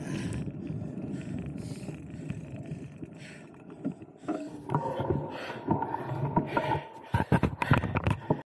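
Mountain bike being ridden on a dirt trail: a steady rushing noise that turns, about four seconds in, to irregular knocks and rattles of the bike over rough ground. A steady high whine runs through the middle, and a burst of sharp loud knocks comes near the end.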